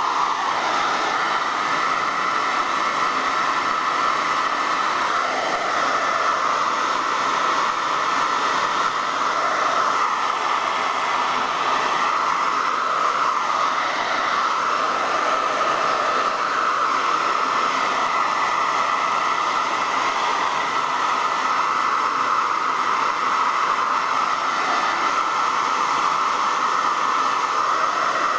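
Hair dryer blowing steadily, an even rushing noise with a faint steady whine above it.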